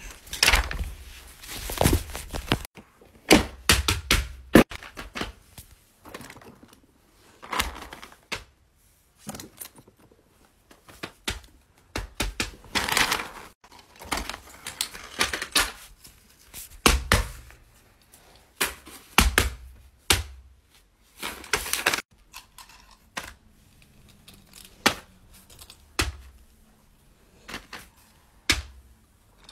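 Irregular clicks, taps and light knocks from fidget toys and a paper sheet being handled on the floor, coming in uneven clusters with short quiet gaps.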